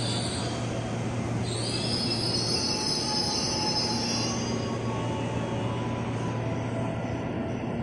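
KRL commuter electric train's steel wheels squealing high-pitched against the rails over a steady low hum and rumble; the squeal shifts higher about a second and a half in and fades out later.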